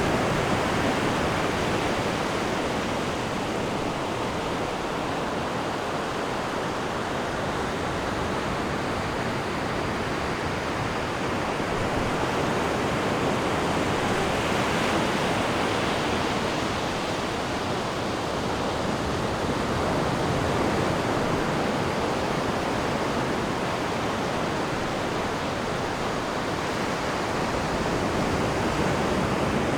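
Ocean surf washing onto a sandy beach: a continuous rush of breaking waves that swells and eases every several seconds.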